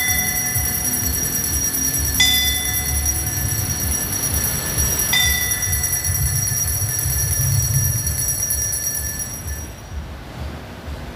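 Altar bells rung at the elevation of the host: a cluster of small bells shaken steadily, with a single bell struck at the start and twice more about three seconds apart, each strike ringing out and fading. The shaken bells stop near the end, leaving a low rumble of wind.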